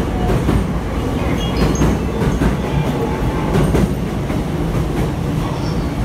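JR Sōbu Line electric commuter train running past a station platform: a steady loud rumble with wheels clicking over the rail joints.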